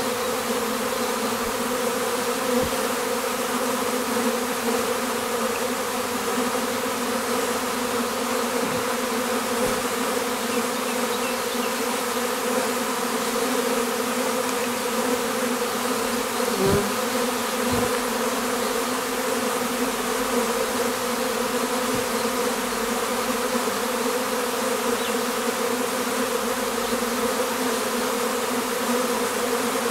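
Many honey bees buzzing together in a steady, even hum. A couple of soft knocks come a little past halfway.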